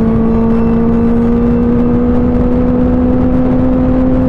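Benelli 600i motorcycle engine pulling hard at highway speed, its note rising slowly and steadily as the bike accelerates, with wind rushing over the helmet microphone.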